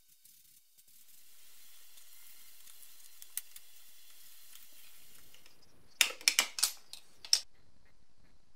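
Compressed-air spray gun hissing steadily while spraying paint onto metal brackets, fading out after about five seconds. Then five or six quick, loud, scratchy strokes of sandpaper rubbing on a primed metal headlight rim.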